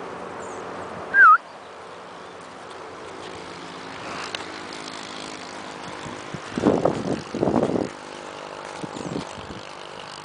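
A horse blowing and sniffing at the microphone from very close: two breathy puffs of about a second each around the middle, and fainter ones later. A short, loud warbling whistle about a second in. A steady hum of traffic runs underneath.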